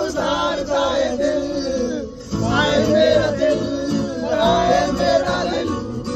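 A song with male singing voices, several men singing together with the music.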